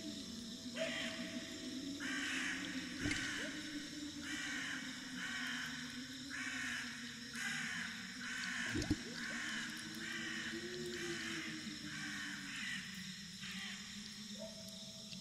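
A crow cawing over and over, a long run of short caws about three every two seconds, over a low steady drone. Two dull knocks sound about three and nine seconds in, the second the loudest moment.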